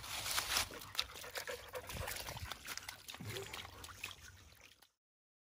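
Golden retriever moving through a shallow trickle of water on leaf-covered ground: splashing, scuffing and rustling under its paws over trickling water. The sound cuts off suddenly about five seconds in.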